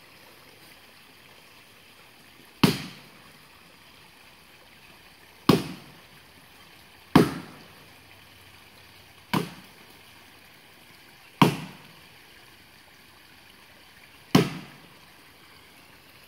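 Ditch axe chopping into the trunk of a large standing dead tree: six sharp strikes, two to three seconds apart. The wood is still solid at the core, so the blows bite shallow.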